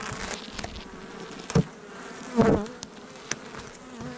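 Honeybees buzzing steadily over an open hive, with a few sharp knocks of a metal hive tool against the wooden frames and box; the loudest knock comes about two and a half seconds in.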